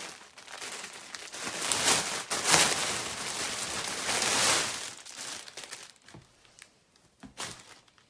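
Cloth being handled: rustling and crinkling, dense and loud for the first five seconds or so, then thinning to a few short rustles and taps near the end.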